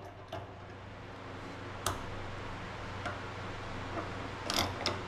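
Scattered metal clicks and taps as a wrench turns the screw of a three-jaw gear puller held in a vise, the sharpest about two seconds in and a quick cluster near the end, over a steady low hum.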